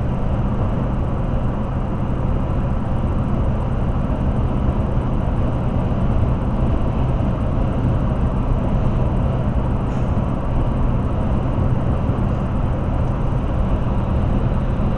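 Steady road noise inside a car cruising at highway speed: an even drone of tyres and engine.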